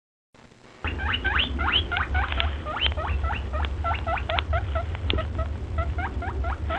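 Rapid high squeaking: short squeaks that each rise sharply in pitch, about three or four a second, starting about a second in, over a steady low hum.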